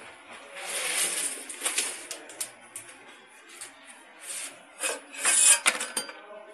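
Plastic reject tray scraping and rubbing as it is pulled out from under a stainless steel reject chute and handled, in irregular bursts with scattered clicks and knocks. The loudest scrape comes about five and a half seconds in.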